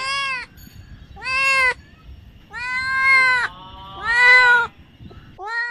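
A kitten meowing loudly five times, each call rising and then falling in pitch, a little over a second apart.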